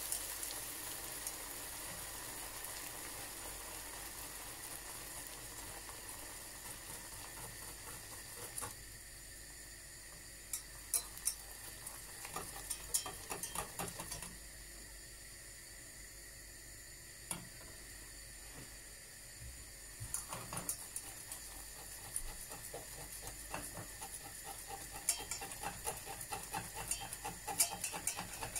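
Hot caramel sizzling and bubbling as butter melts into it, with a wire whisk stirring it and clicking and scraping against the stainless steel saucepan. The sizzle is steady at first; from about nine seconds in the whisk clicks come in clusters, busiest near the end.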